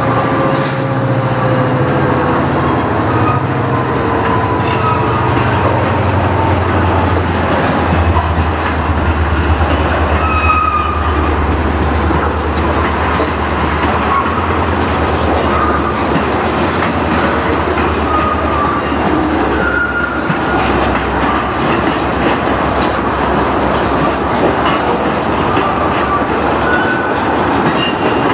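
A freight train of tank cars rolling past at close range: a steady rumble of steel wheels on the rails, with short high squeals from the wheels now and then.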